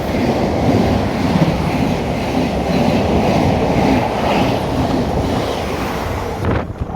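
Passenger train passing close by at speed, its wheels and rails making a steady loud rumble that cuts off abruptly near the end.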